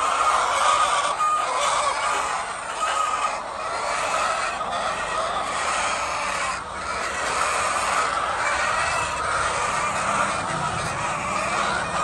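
A large flock of laying hens clucking and calling all at once, a dense continuous chatter of overlapping calls.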